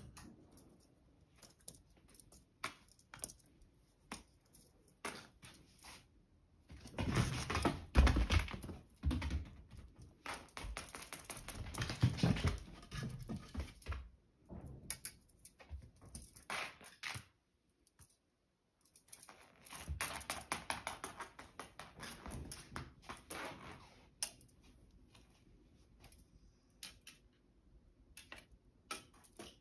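A cat playing on tatami mats: irregular scuffling, tapping and thuds, with two louder stretches of busy scrabbling, one about a quarter of the way in and one past the middle.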